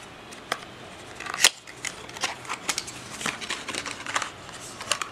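Small cardboard product carton being opened by hand: a string of light clicks and scrapes of card, with one sharper snap about a second and a half in.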